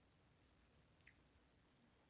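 Near silence: faint room tone, with one small sharp click about halfway through.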